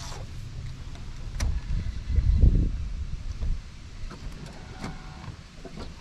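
Wind buffeting the microphone: a low rumble that swells to its loudest about two seconds in, then eases, with a few light clicks.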